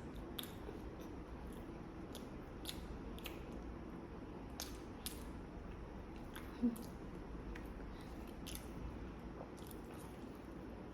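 Close-miked eating sounds of a person chewing food, with scattered irregular wet clicks and smacks, and one short, louder low sound about two-thirds of the way through.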